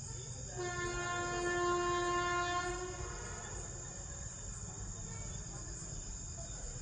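Vande Bharat Express trainset sounding one long, steady horn blast of about two seconds as it approaches. Crickets chirr steadily behind it.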